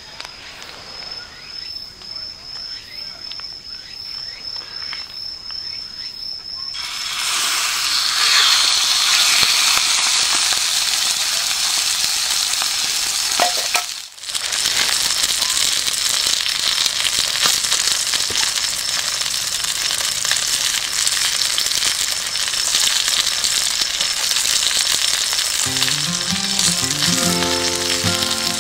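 Food sizzling as it fries in a pan, a loud, even hiss that starts about seven seconds in after a quieter stretch with a thin, steady high whine. Background music comes in near the end.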